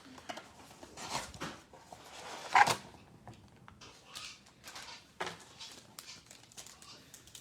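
Trading-card packaging being handled and opened: a cardboard blaster box and pack wrappers rustling in scattered short bursts, the loudest about two and a half seconds in and another past five seconds.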